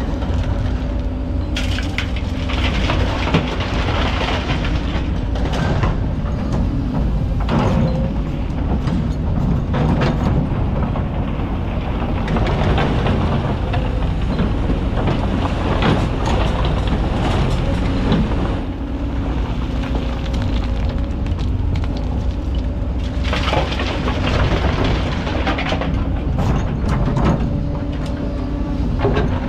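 Kobelco hydraulic excavator's diesel engine running under load with a steady hydraulic hum, while its bucket scrapes through hard rocky black sand and dumps loads that crash and rattle into the dump truck's bed several times.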